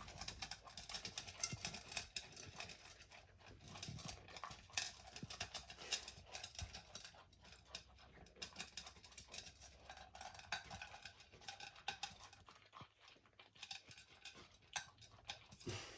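Golden retriever puppy eating from his food bowl: faint, irregular clicking and crunching.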